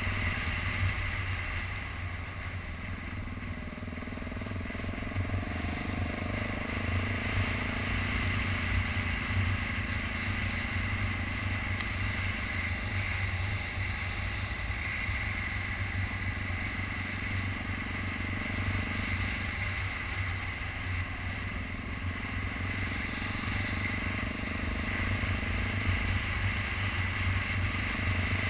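2012 BMW G650GS Sertao's single-cylinder engine running at steady cruising speed on a dirt road, with wind and road noise over it. The engine note rises and falls a little as the rider works the throttle.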